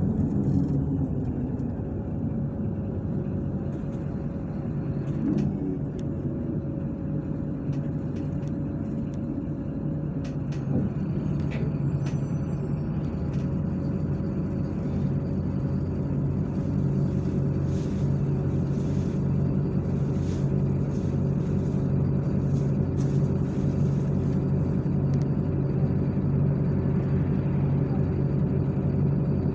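MAZ-103 city bus heard from inside the cabin while under way: the diesel engine and drivetrain run with a steady hum, the engine note falling right at the start and then holding, with scattered clicks and rattles from the body.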